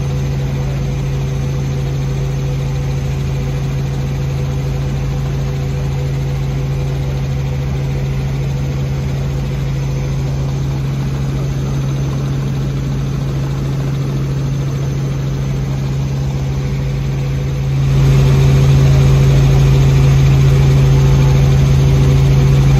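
Helicopter in cruising flight, heard from inside the cabin: a steady, loud drone of engine and rotor that holds one low pitch throughout. The drone gets louder about eighteen seconds in.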